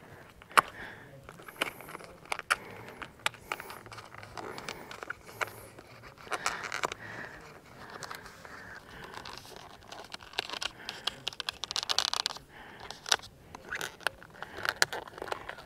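Insulated wires being pushed by hand into a plastic wire conduit: irregular scraping and rustling with scattered small clicks, in a few busier stretches.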